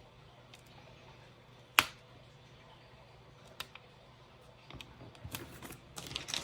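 Hands quietly handling planner stickers and paper: a single sharp click about two seconds in, a couple of faint ticks, and light rustling and tapping near the end.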